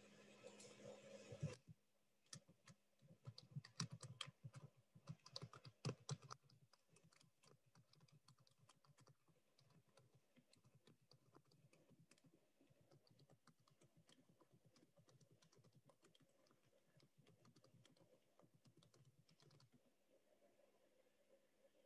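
Computer keyboard typing: quick runs of key clicks, louder and busier for the first few seconds, then lighter, steady tapping that stops shortly before the end.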